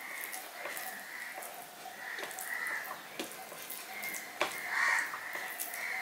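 Fingers mixing and squeezing soft rice with mashed red amaranth bharta and mustard oil on a steel plate: soft sticky squishing with a few sharp clicks, one of them about four and a half seconds in. Behind it runs a wavering high-pitched background sound that swells about five seconds in.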